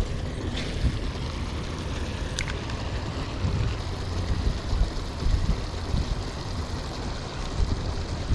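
Wind buffeting the microphone, a steady rough rumble with an even hiss above it. Two faint clicks come in the first few seconds.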